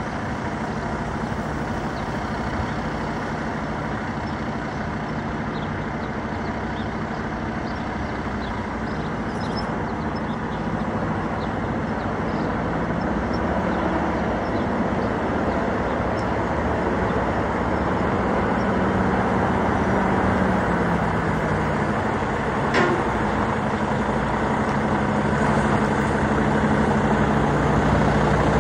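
Kenworth T680 semi truck's diesel engine pulling a loaded trailer at low speed, getting steadily louder as the truck approaches. The engine note drops a little about three-quarters of the way through, and there is one brief sharp sound shortly after.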